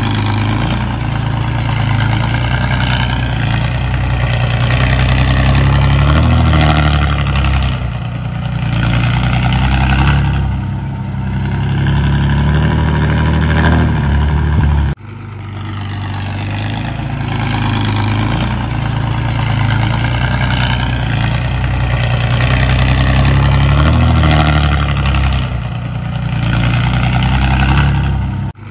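Heavy diesel engine of earthmoving machinery running under load, rising in pitch now and then and easing off. The sound cuts off abruptly about halfway through and starts again.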